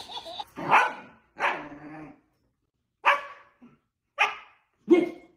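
Five short barks, about a second apart, with silence between them.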